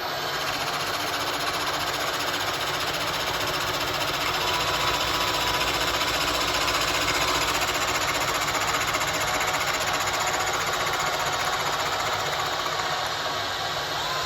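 Milling machine running with its cutter taking a light facing cut on the workpiece while a drill motor powers the knee feed. The steady machine noise is a little louder through the middle, where the cutter is in the work. This first pass is too light to clean up the face.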